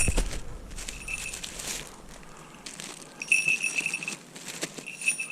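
Small falconry bells on a red-tailed hawk jingling in four short bursts as the bird shifts, over soft rustling from handling.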